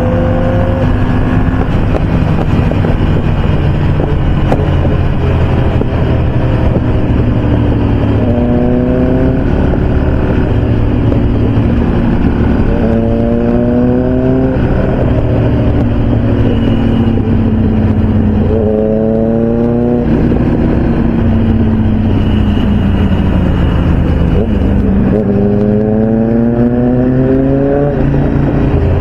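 Motorcycle engine at speed under heavy wind rush, revving up four times and easing off slowly in between.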